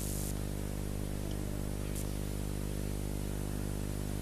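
Steady electrical hum with a ladder of evenly spaced overtones, under a constant hiss: the background noise of a sound system and an old recording.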